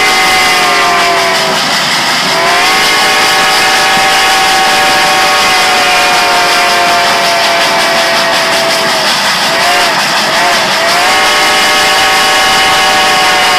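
Steam locomotive whistle of Reading and Northern 425 blowing loudly in long sustained blasts, a chord of several tones. Its pitch sags and recovers about two seconds in and again around nine to ten seconds.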